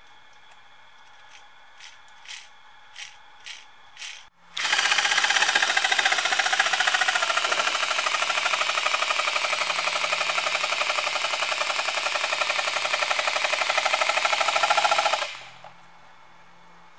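Four-cylinder pneumatic model motor made of paper, driven by air. First come a few separate puffs as it turns over slowly. Then it runs as a loud, steady rush of air with a rapid chuffing rhythm for about ten seconds and stops suddenly. This version runs much worse than its single-cylinder predecessor, most likely from poor assembly and heavy friction.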